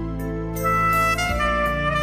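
Background instrumental music: a horn melody, saxophone-like, comes in about half a second in over held bass notes.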